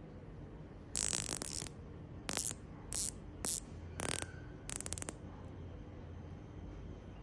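The rotating dive bezel of a Sunrex Anemone City chronograph being turned by fingertip in six short spurts, each a quick run of ratchet clicks. The first run, about a second in, is the longest.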